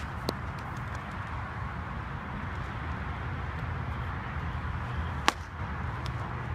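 A softball smacking into leather or off a bat: one sharp crack a little over five seconds in and a fainter one just after the start, over a steady outdoor rumble and hiss.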